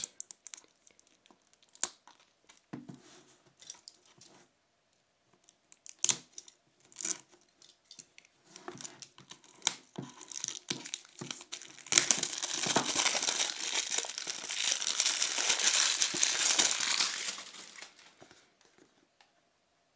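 Plastic shrink wrap being picked at and peeled off a small cardboard box. First come scattered crinkles and clicks. About two-thirds of the way through there are some five seconds of loud, continuous tearing and crinkling as the wrap comes away, then it fades out.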